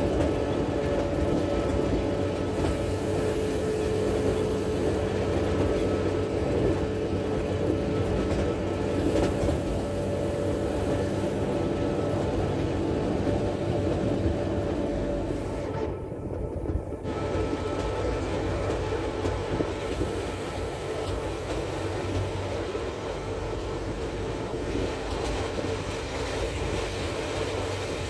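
Appenzeller Bahnen electric train running along the track, heard from the carriage window: a steady rolling rumble with a humming tone in it that fades out about halfway through.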